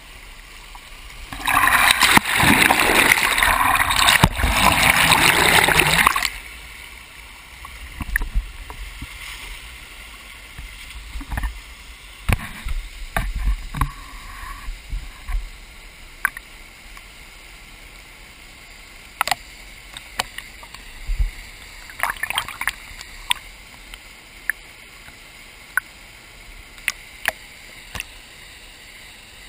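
Stream water sloshing and gurgling around a half-submerged camera, loud for a few seconds near the start, then a quieter steady wash of moving water with scattered drips and small splashes.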